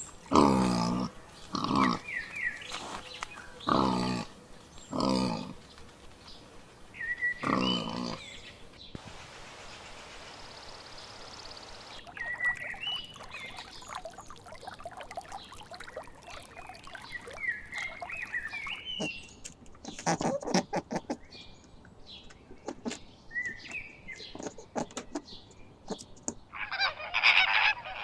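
Domestic waterfowl calling: loud repeated calls about once a second, then, after a few seconds of hiss, softer high chirps and clicks.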